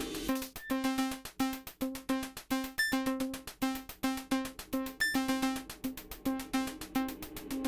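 Background music: a quick, bouncy synthesizer melody of short plucked notes over a steady beat.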